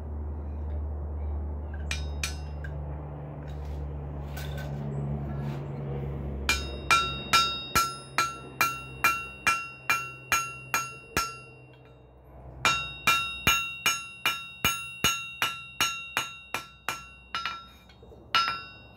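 Hand hammer striking a hot, folded piece of flat bar on a steel anvil, forge-welding the folded layers together. The blows come at about two a second, each with a ringing tone from the anvil, in two runs with a short pause between them. A low steady rumble comes before the hammering starts.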